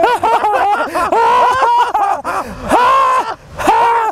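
A high, wordless voice wailing in a quick run of short rising-and-falling cries, then two longer held cries near the end.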